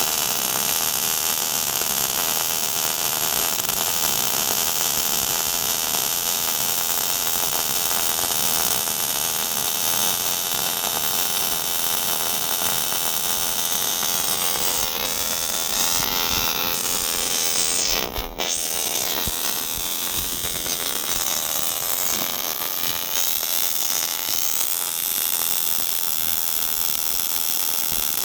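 MIG welding arc from a robotic welder running steadily: a continuous hiss, broken off briefly about eighteen seconds in.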